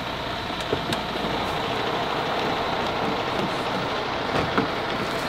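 Coach bus idling, a steady rushing noise, with a few light knocks.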